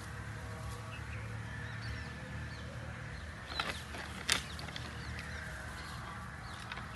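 Chital stags sparring, their antlers knocking together in two sharp clacks about three and a half and four seconds in, the second the louder, over a steady low hum and faint bird chirps.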